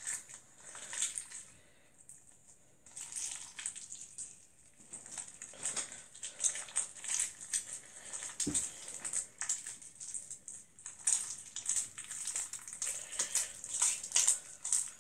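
Pink slime with hand lotion being squeezed and kneaded between the fingers, making irregular wet crackling and small popping clicks. One soft knock about halfway through.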